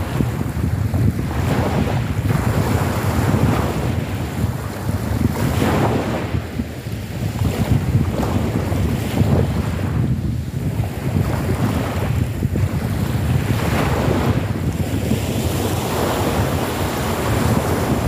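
Small wind-driven sea waves breaking and washing onto a pebble beach, swelling in surges every couple of seconds, over a steady rumble of wind buffeting the microphone.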